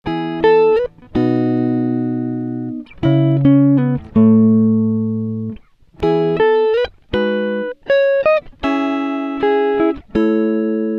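Background music: a slow guitar passage of plucked notes and held chords, with no drums.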